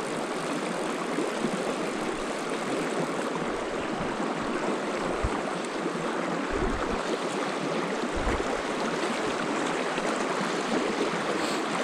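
Steady, even rush of a shallow freestone stream running over riffles.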